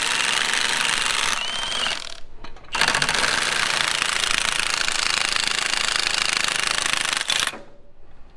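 Milwaukee cordless impact wrench hammering on an engine's crankshaft pulley bolt to break it loose, in two runs: one at the start and a longer one from about three seconds in, with a short whine of the motor between them.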